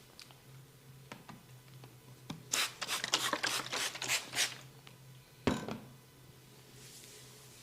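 Hands rubbing and tapping on a head during a barber's head and ear massage. A few light clicks come first, then a quick run of scratchy rubbing strokes for about two seconds, then a single thump.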